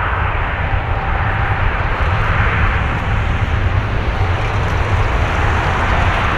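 Boeing 777 freighter's two GE90 turbofans running at high thrust on the runway: a steady, loud jet noise with a deep rumble under it and no let-up.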